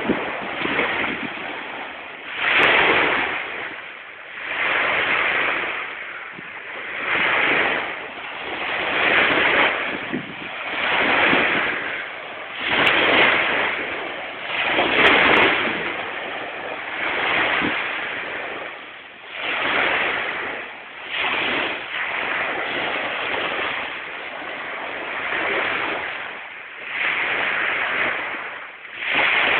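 Small waves washing onto a sandy beach: a hiss of surf that swells and fades about every two seconds.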